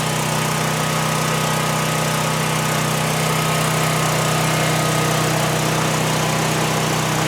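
LPG-fuelled backup generator engine running steadily at constant speed, giving an even hum.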